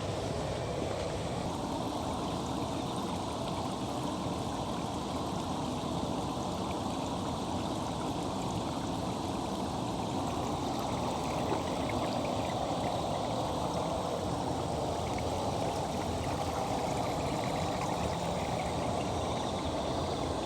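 Water running and splashing in a steady, unbroken flow.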